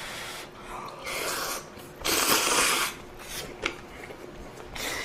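Close-miked eating sounds of hot ramen: a few short airy bursts, the loudest about two seconds in, then a light click.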